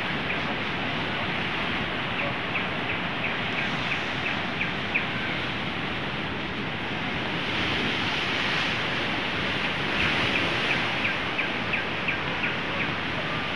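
Steady rush of muddy floodwater flowing over the ground. Two quick runs of short, high, evenly spaced chirps sound over it, a few seconds in and again near the end.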